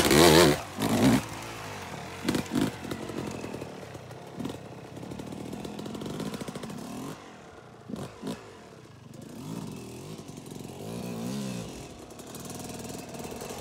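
Yamaha YZ250 two-stroke dirt bike revved hard as it pulls away in the first second, then running fainter as it moves off. Through the rest, the throttle is blipped over and over, so the revs rise and fall in short sweeps as it is ridden slowly over logs.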